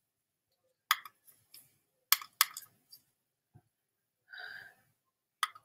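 Computer mouse clicking sharply, about four single clicks spread apart, with a short breathy sound a little after four seconds in.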